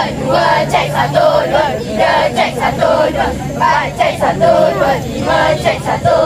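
A group of students chanting a cheer together in unison, loud and continuous.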